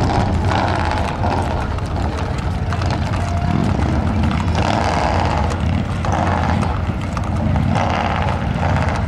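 Steady low engine drone from a motor vehicle or aircraft, holding an even level throughout.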